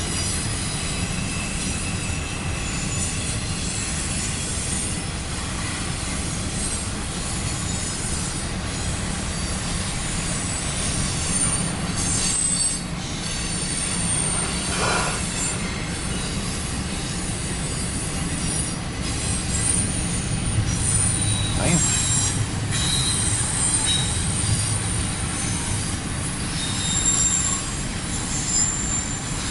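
Intermodal freight train's cars rolling past: a continuous rumble of steel wheels on rail, with thin high-pitched wheel squeals coming and going.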